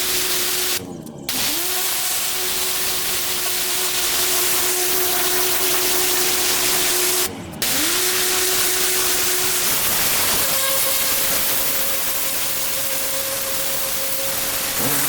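Pressure washer spraying: a steady hiss of the water jet over the machine's motor hum. The spray stops briefly twice, the motor tone dropping and then recovering each time, and about ten seconds in the tone steps higher.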